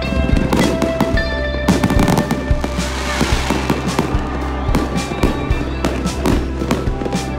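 Fireworks display: a rapid string of sharp pops and bangs with crackling and hiss as comets and fountains are fired, with music playing underneath.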